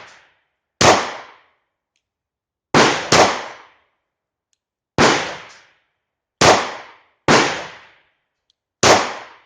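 Seven 9mm shots from a German P.08 Luger pistol, fired one at a time at an uneven pace, two of them close together about three seconds in. Each sharp crack trails off in a short echo.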